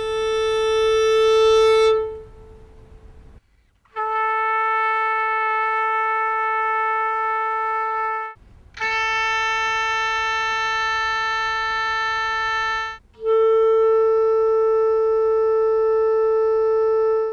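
A row of single held notes on the tuning pitch A440, each lasting about four seconds with short gaps between. A bowed violin note ends about two seconds in, then a trumpet, another instrument and a clarinet each sound the same A in turn.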